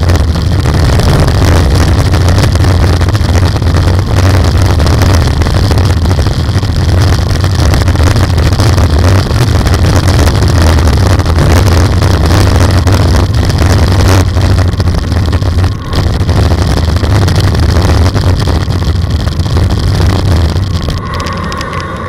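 Heavy wind buffeting the microphone of a bike-mounted camera while riding at speed, mixed with the hiss of tyres on a wet road. It eases about a second before the end.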